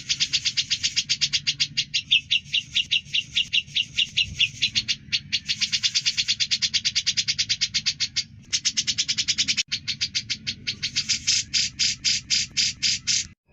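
Cucak jenggot bulbul singing a long, fast run of sharp repeated chips, about eight a second, broken by a few brief pauses. The notes slow to a few a second near the end.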